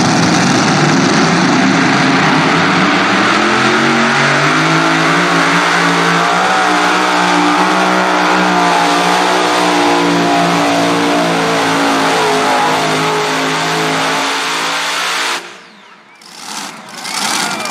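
Super modified pulling tractor's bank of racing engines running at full throttle under load on a pull; the engine note rises about four seconds in, then wavers up and down. The sound cuts off abruptly about fifteen seconds in, leaving a quieter engine sound near the end.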